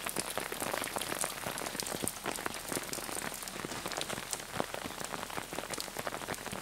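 Steady, dense patter of wet snow and melt drops landing on roofs, branches and the ground during a heavy, wet snowfall.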